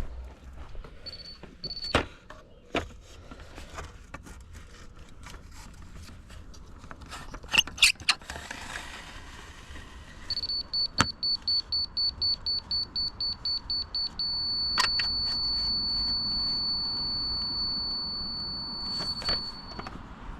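Laser level grade receiver beeping: a single high tone in quick pulses, about four a second, then held as one steady tone for about five seconds, the signal such receivers give for on grade. Scattered clicks and knocks come earlier, loudest around the middle.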